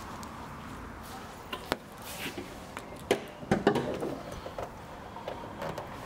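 Scattered sharp clicks and knocks over a quiet room background, with a single click about two seconds in and a cluster of louder knocks around three to four seconds in.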